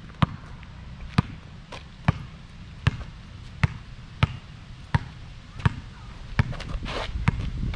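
A basketball being dribbled on a hard court, bouncing in a steady rhythm of about one bounce every two-thirds of a second.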